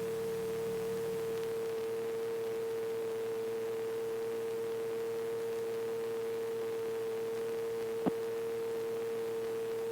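Steady electrical hum with one strong, even tone, as carried by the KR-2S's intercom audio feed into the camera, with fainter steady lines beneath it. A single brief click comes about eight seconds in.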